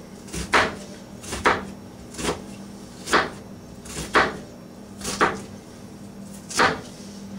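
Chef's knife slicing down through an onion onto a plastic cutting board: about seven single cuts, roughly one a second.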